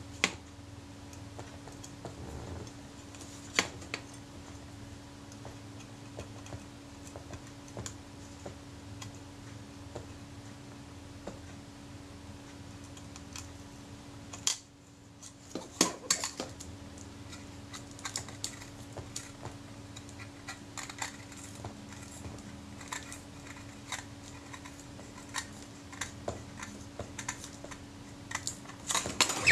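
Steel scalpel blade clicking and scraping against the metal door of a Kodak Retina IIa camera as it is worked under the edge of the glued leatherette covering. Scattered small sharp clicks, more frequent in the second half, over a steady faint hum.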